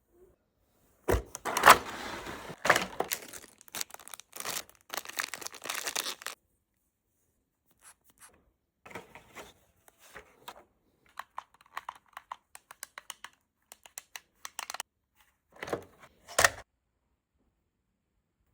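Packaging rustled and torn by hand for several seconds, then a run of light, sharp clicks and ticks, and two short louder rustles near the end.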